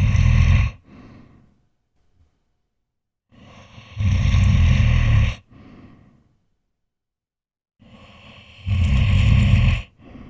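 A person snoring in sleep: three loud, low snores on the breath in, about four and a half seconds apart, each followed by a softer breath out and a pause.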